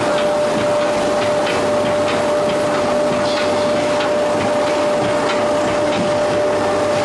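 Veneer peeling and clipping lathe running, a steady machine drone with one constant whine. Over it come irregular wooden knocks and clatter as veneer sheets are cut and handled.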